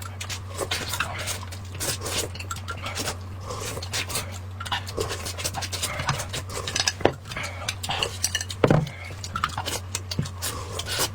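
Eating sounds: close-up chewing and mouth noises with many short clicks of dishes and utensils, over a steady low hum.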